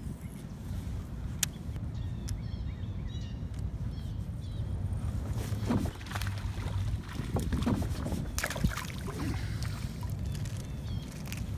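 Wind buffeting the microphone, a steady low rumble, with scattered brief clicks and rustles, most of them in the middle.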